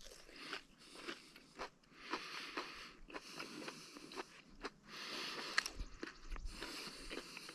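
Close-up chewing and crunching of crispy homemade fry bread, a run of small irregular crackles.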